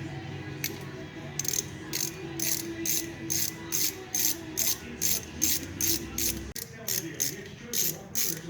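Hand ratchet clicking in an even rhythm, about three to four clicks a second, as it is worked back and forth to undo a fastener on the carburetor.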